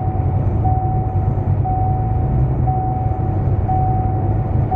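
Ford Mustang GT's 5.0 V8 idling at about 800 to 900 rpm with the AC running, heard from inside the car. Over the low engine rumble, a thin tone beeps on and off about once a second.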